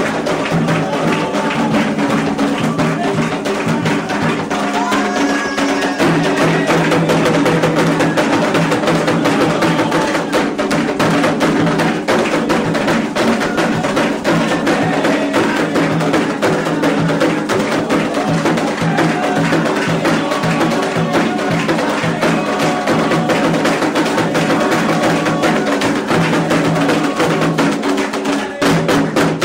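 Candomblé ceremonial music: atabaque hand drums played in a fast, steady rhythm with a bright struck bell or wood-block-like percussion, and voices singing over them.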